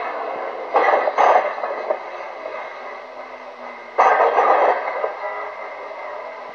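Micro banger race car heard from inside the cabin: a steady run of engine and road noise, thin and without bass. Two sudden loud harsh bursts stand out, one about a second in and one about four seconds in, the second as the car is jolted.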